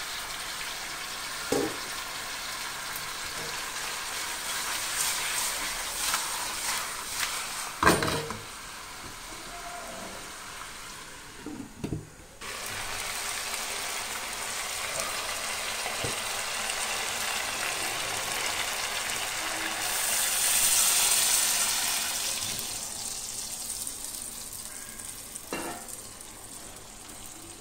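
Hilsa fish pieces cooking in spiced masala in a pan, with a steady sizzle and a few knocks of a utensil against the pan. The sizzle cuts out briefly about twelve seconds in, then grows louder around twenty seconds before easing off.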